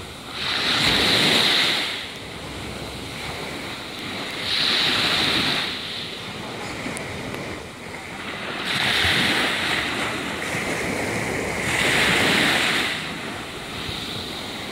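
Small waves breaking and washing up a sandy beach: a steady wash of surf that swells into a louder hiss four times, every three to four seconds.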